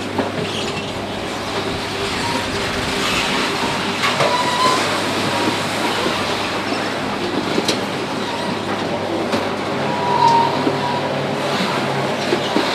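Spiked steel compaction roller of a Bergmann RPM 7700 roll-packer rolling through old tyres and waste in an open container. It makes a continuous grinding, clanking noise of metal, with a few brief high squeals and occasional sharp knocks over a steady low hum.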